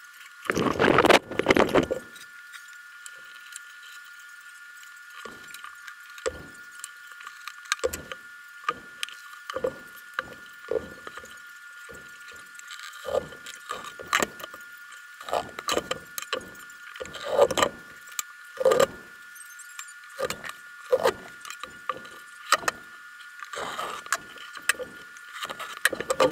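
Leather strips and a steel square being handled on a wooden workbench: a loud burst of handling noise about a second in, then scattered light knocks and clinks, over a faint steady high hum.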